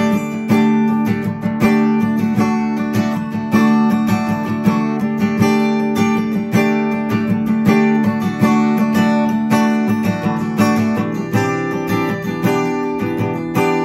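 Acoustic guitar with a capo, strummed chords in a steady rhythm.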